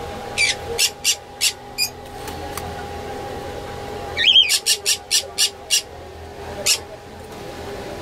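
Caged small parrots giving short, shrill calls in quick runs: five in the first two seconds, a rapid burst of about seven from just past the middle, and a single call near the end.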